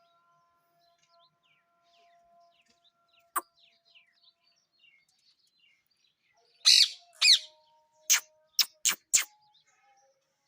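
Parrots calling: two loud screeches about two-thirds of the way in, followed by four short, sharp squawks in quick succession. A single click sounds earlier.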